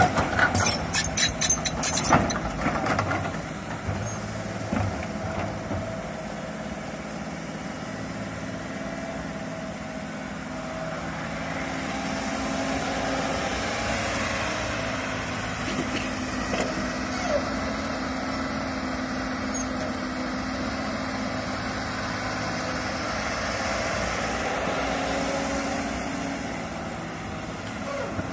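Komatsu crawler excavator's diesel engine running as the machine works soil. A burst of rapid metallic clanks and rattles comes in the first two seconds or so. The engine then runs steadily, swelling a little twice as the machine works.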